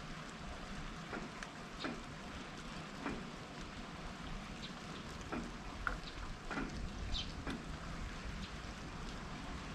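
Steady rain, with separate large drops striking close to the microphone at irregular moments.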